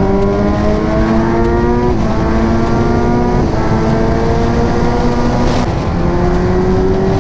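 Kawasaki Ninja 1000SX's inline-four engine running hard at highway speed, its note rising slowly and stepping down in pitch three times, over steady wind rush.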